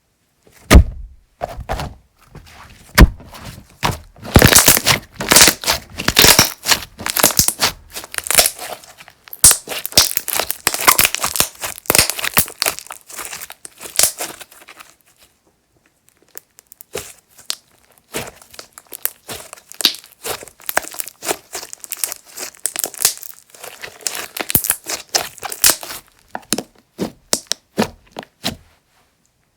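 Slime being played with by hand: dense crackling, popping and crinkling clicks, with a few sharp pops near the start and a short pause about halfway through.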